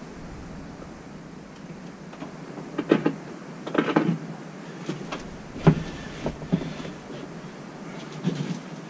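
Scattered knocks, clanks and scrapes from hand work on a bare RV subfloor as carpet tack strip is pried up, with the loudest knocks bunched in the middle.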